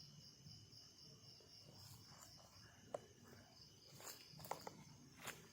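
Faint night insects chirping in a steady, high, pulsing trill, with a few soft clicks or rustles in the second half.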